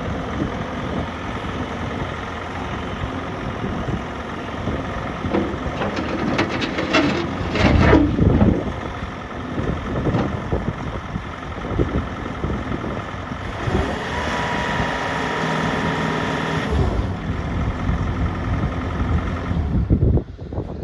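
2015 Bobcat T650 skid steer's 74 hp diesel engine running, with a burst of clanking knocks about seven to eight seconds in and a higher steady whine joining for a few seconds around the middle; the sound cuts off near the end.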